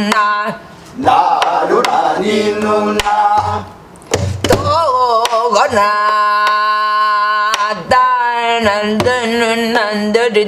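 A woman singing gueum, a wordless Korean vocal melody on syllables, while striking a buk barrel drum with a stick. About six seconds in she holds one long note, then sings on with a wide wavering vibrato, the drum strokes marking the rhythm.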